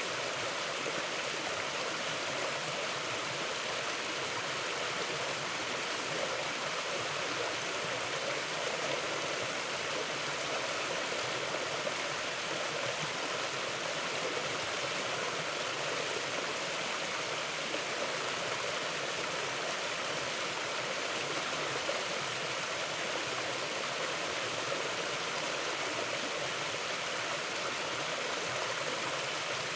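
Mountain river flowing over rocks: a steady, even rushing of water.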